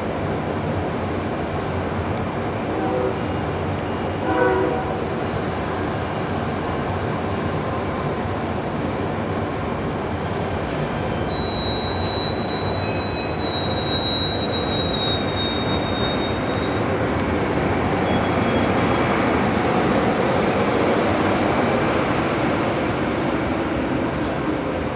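Amtrak Superliner bilevel passenger cars rolling past close by: a steady rumble of steel wheels on rail. A high, thin wheel squeal rides over it for several seconds around the middle, dropping slightly in pitch.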